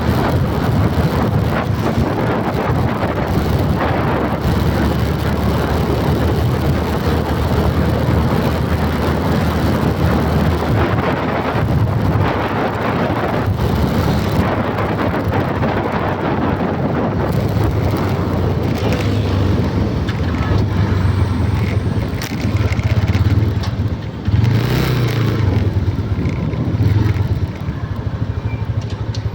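A motor vehicle's engine running steadily, with its pitch shifting and briefly rising about twenty-five seconds in, under heavy wind noise on the microphone.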